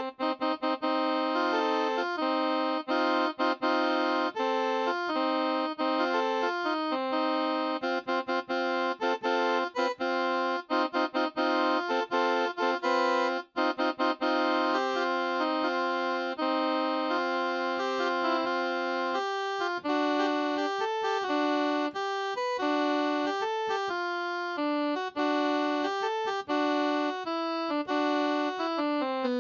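Outro song played on an electronic keyboard with a saxophone-like voice: sustained chords over a long held low note that gives way, about two-thirds of the way through, to quicker-changing notes.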